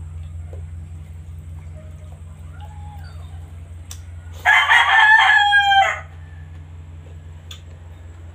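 A rooster crowing once, a single loud call of about a second and a half starting about four and a half seconds in, dropping slightly in pitch at its end. A steady low hum runs underneath.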